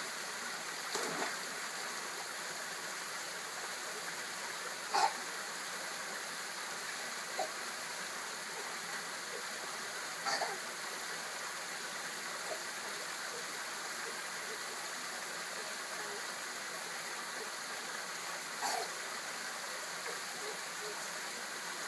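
Steady trickling of water falling from a pool's rock waterfall feature. A splash comes about a second in, and a few brief, louder sounds follow at intervals.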